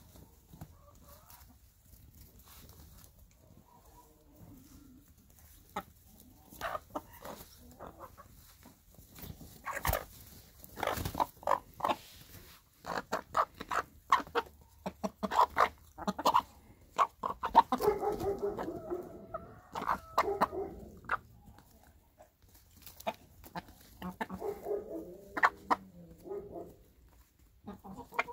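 Hens clucking as they crowd round a piece of bread and peck at it: many quick sharp pecks through the middle, with longer stretches of clucking later on.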